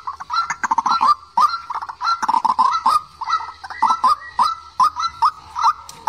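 Waterhen (quốc tơ) calling: a rapid, continuous series of short, honking notes, several a second, with no let-up.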